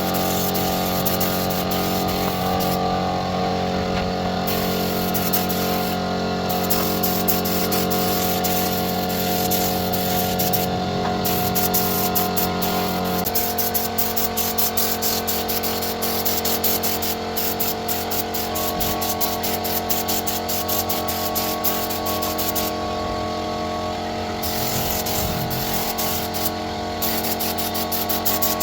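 A woodworking machine's electric motor running steadily, its hum shifting to a slightly different pitch about halfway through.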